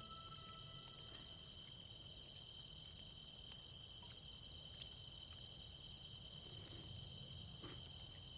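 Faint, steady chirring of insects, one high-pitched continuous drone with a few faint ticks.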